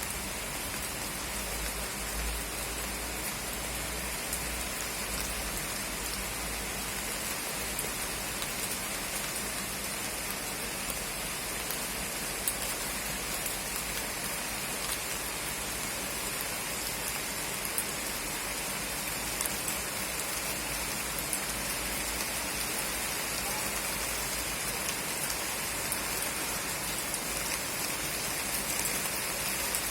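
Steady rain falling, an even hiss of rain with occasional sharper drop taps.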